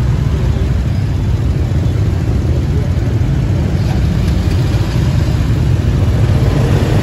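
Many motor scooters idling together in a dense pack, a steady low engine rumble that swells slightly near the end.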